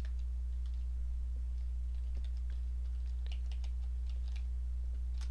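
Computer keyboard typing: irregular keystrokes, coming in quick runs in the second half, with a sharper keystroke near the end. Under it runs a steady low electrical hum.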